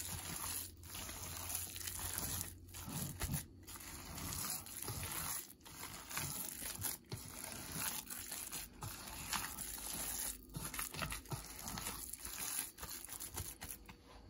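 Hand-kneading of raw minced pork mixed with chopped vegetables in a stainless steel bowl: wet squishing and squelching in uneven strokes with brief pauses, stopping just at the end.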